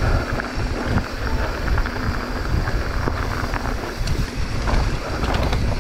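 Wind buffeting the microphone over the rolling tyres and rattle of a mountain bike ridden fast down a dirt singletrack, with many small knocks and clicks from the trail surface.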